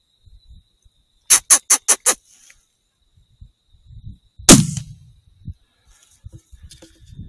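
Five quick, sharp calls in under a second, then about three seconds later a single loud rifle shot at a fox, with a low boom trailing off after it.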